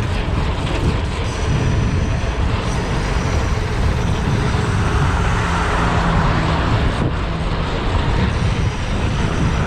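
Steady rush of wind and road noise from a bicycle bombing fast down a city hill through traffic, with passing traffic mixed in.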